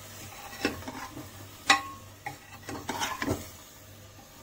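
Steel ladle stirring chopped vegetables in a pressure cooker pot, scraping and clinking against the pot several times, the loudest knock about halfway through. A low sizzle of the vegetables frying in oil runs underneath.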